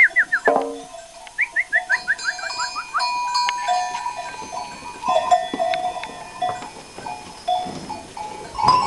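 Goats and kids milling in a pen: livestock bells ringing and clanking, a goat bleating once about half a second in, and a rapid run of short high chirps in the first three seconds. A sharp knock near the end.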